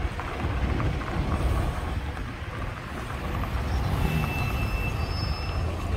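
Steady low rumble of city street traffic, with a thin high-pitched whine from about four seconds in that lasts a second and a half.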